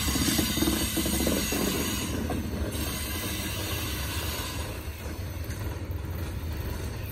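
Freight train's covered hopper cars rolling past on steel rails: a steady low rumble with wheel-on-rail noise. It is roughest in the first second or so and eases a little as the last car goes by.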